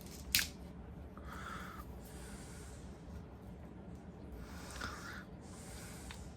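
Carving knife whittling a block of poplar: a sharp click near the start, then two short scraping cuts a few seconds apart.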